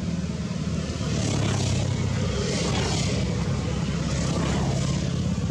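A steady low engine drone, with soft rushing swishes laid over it about a second in and again near four seconds.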